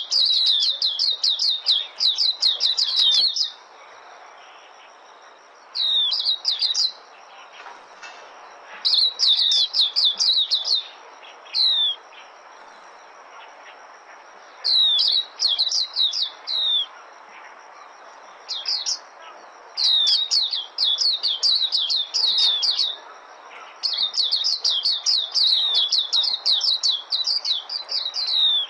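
White-eye (vành khuyên) singing its rapid, high twittering song in about eight bursts of one to four seconds each, with short pauses between, over a faint steady background hiss.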